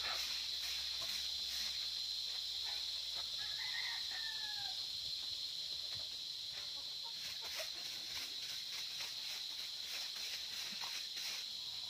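A rooster crows once, about three and a half seconds in, the call falling in pitch at its end, over a steady high insect drone. Faint scratching of a stick broom sweeping dry dirt and leaves comes and goes.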